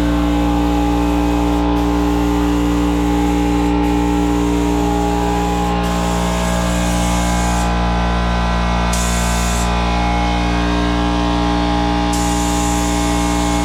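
Paint spray gun hissing over a steady motor drone from its air supply. The high hiss drops out briefly several times.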